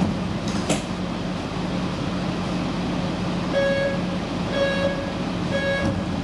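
Steady rumble and low hum inside a Helsinki Metro M200 car, with a click about a second in. Three short electronic beeps follow, evenly spaced about a second apart, in the second half.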